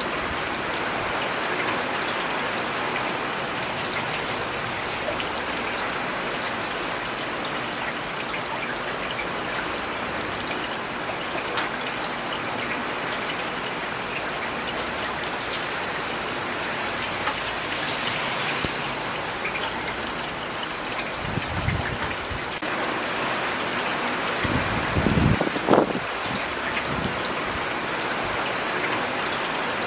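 Steady rain falling on city surfaces, with scattered drips pattering close by. Twice, at about twenty-one and twenty-five seconds in, a brief low rumble swells and fades under the rain.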